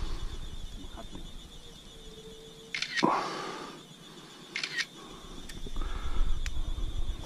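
Smartphone camera shutter sound, twice: once about three seconds in and again about a second and a half later, the first followed by a short rush of noise.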